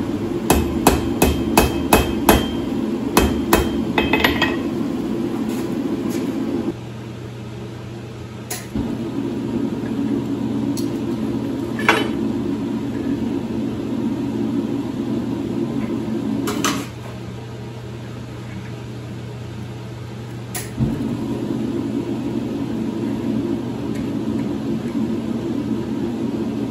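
Hand hammer striking hot steel on an anvil, about a dozen quick ringing blows in the first four seconds, over a steady low drone. The drone then stops and starts again a few times, with a few sharp metal clinks as the piece is bent with tongs in a bench vise.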